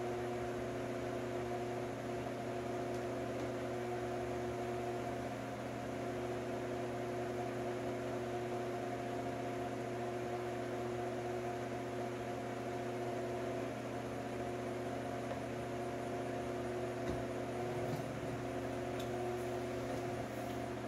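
Steady hum of a running electric shop fan, with a few faint clicks near the end.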